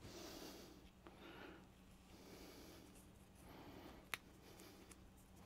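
Near silence: faint handling sounds of a guitar-string wire and a small wooden dowel being worked by hand, with one light click about four seconds in, over a faint steady hum.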